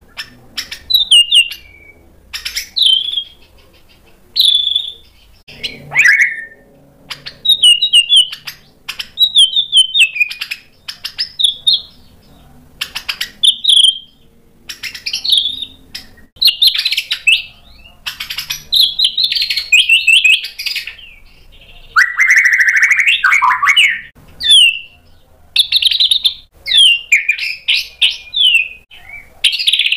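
Caged white-rumped shama (murai batu) singing loudly: a varied song of short, sharp whistled phrases and quick trills, one after another with brief pauses. About two-thirds of the way through it runs almost unbroken, with a lower phrase. The song is full of borrowed phrases (isian), the kind of 'gacor' song played to set other shamas singing.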